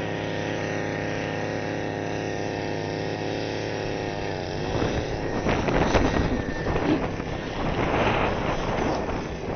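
An engine running at a steady speed, a low even drone. About halfway through, rougher, uneven noise rises over it.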